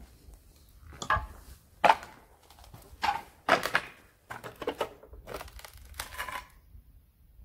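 Footsteps crunching over broken fragments of debris on a concrete floor, about seven crunching steps at walking pace that stop shortly before the end.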